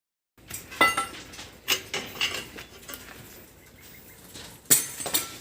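Sharp metallic clinks and scrapes of work on a building site, five or so distinct strikes, the loudest near the end, over a low background of site noise.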